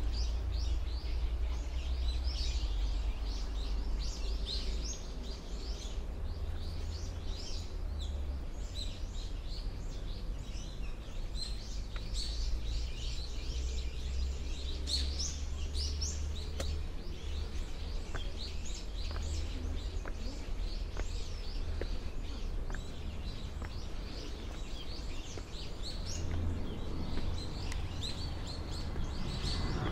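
Many small birds chirping and twittering in quick, overlapping calls over a steady low rumble.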